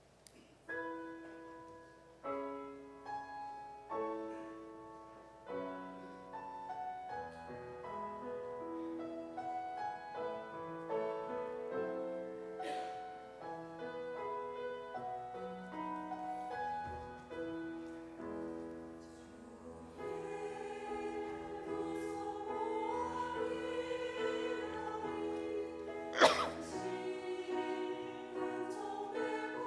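Piano introduction playing a slow melody over chords, then a church choir begins singing about two-thirds of the way in. A single sharp knock sounds near the end.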